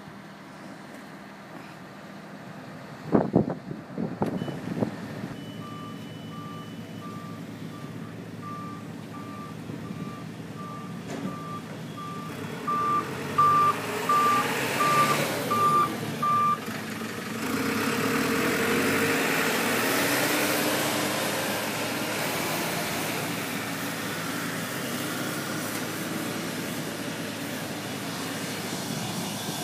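Boeing 737-200's Pratt & Whitney JT8D jet engines running as the airliner taxis closer, the engine noise building from about twelve seconds in and staying loud. Through the first half a ground vehicle's reversing beeper sounds repeatedly, about one and a half beeps a second. A few sharp thumps come about three seconds in.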